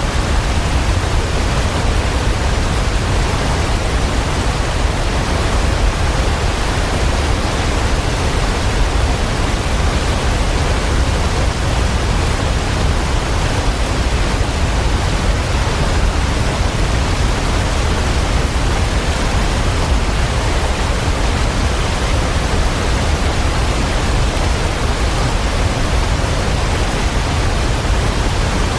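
Waterfall: a steady, loud rush of falling water with a deep rumble underneath, unchanging throughout.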